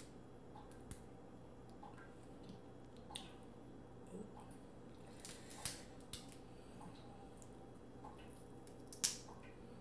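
Fingers peeling the shells off sauce-coated boiled seafood: wet squishing with scattered sharp cracks and clicks of shell, the loudest about nine seconds in.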